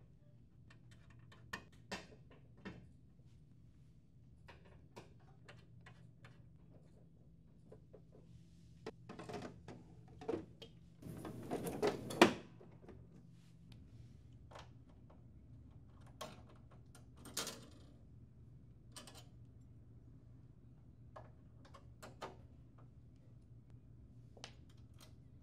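Plastic and metal printer-finisher parts being fitted by hand: scattered light clicks and knocks, with a scraping slide about halfway through that ends in a sharp click, the loudest sound, as a part snaps into place.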